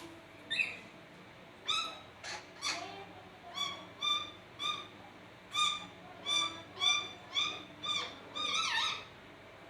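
Nuri parrot (lory) calling in a run of short, repeated pitched calls, about one or two a second, ending with a longer call that slides in pitch.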